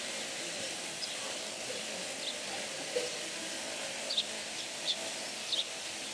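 Electric sheep-shearing handpiece with a snow comb running steadily as it cuts through a ewe's fleece. A few short, high bird chirps come through over it.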